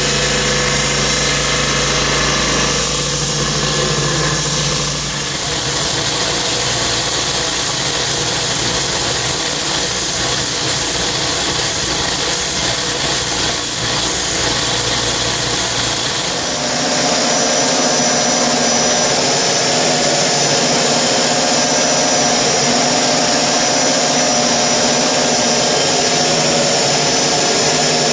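Belt grinder running, with a steel knife blank pressed against the abrasive belt: a steady grinding hiss over the machine's motor hum. The sound changes character twice, about 5 and 16 seconds in.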